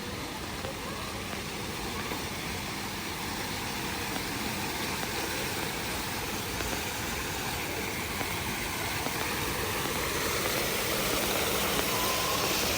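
City street traffic: a steady wash of car engines and tyre noise with no single event standing out, growing slowly louder toward the end.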